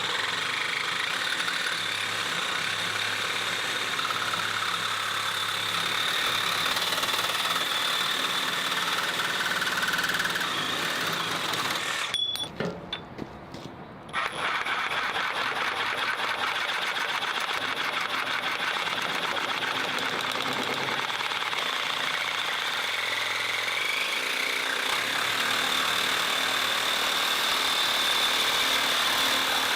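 Makita JR001G 40V cordless brushless reciprocating saw running and cutting steadily. It stops for about two seconds roughly twelve seconds in, then starts cutting again.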